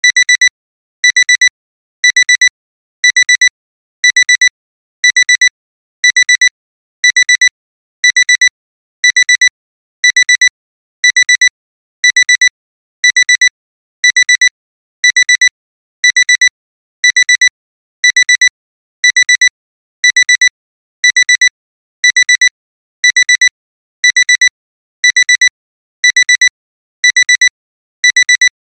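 Alarm clock's high electronic beep, sounding about once a second in short, evenly spaced beeps that repeat without a break: the timer has run out.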